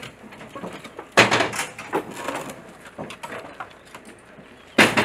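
Aluminium panels of a wrecked Cessna clattering and scraping as they are lifted and handled, with a loud bang about a second in and another sharp bang near the end.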